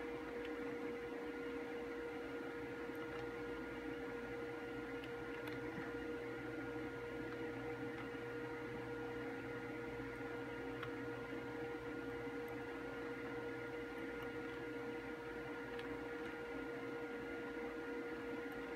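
Steady electrical hum with one constant mid-pitched tone and a fainter higher one over a low hiss, and a few faint clicks scattered through it.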